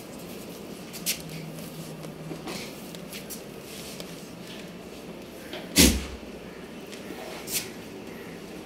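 A goat feeding from a plastic bowl of grain feed: a few sharp clicks over steady background noise, and one loud, heavy knock a little past halfway, as the bowl is bumped.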